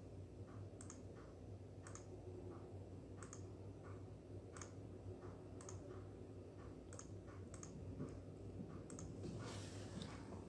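Faint computer mouse clicks, a dozen or so at irregular intervals, as line end points are placed while drawing, over a low steady hum.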